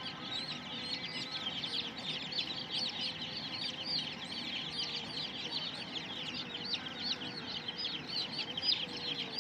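A large flock of two-day-old chicks peeping continuously, many short, high chirps overlapping into a dense chorus.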